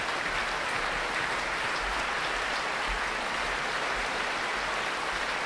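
Large concert-hall audience applauding: even, steady clapping with no change in level.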